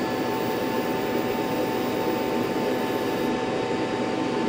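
Mini laser marking machine running a job, a steady whirring hum with a few constant tones, most likely its cooling fans. A faint high hiss drops away about three seconds in.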